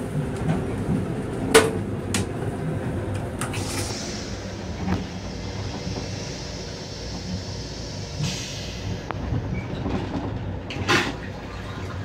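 Metro-North M7 electric railcar in motion, heard from inside its restroom: a steady low rumble with hiss, broken by a few sharp clicks and knocks, the loudest about one and a half seconds in and another about eleven seconds in.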